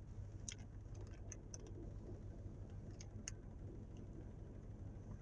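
Faint, scattered crinkles and ticks of a plastic wrapper being handled, over a steady low hum.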